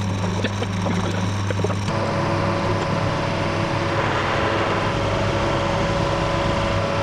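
Harrison metalworking lathe running with a steady mechanical hum and whine, the sound shifting a little about two seconds in.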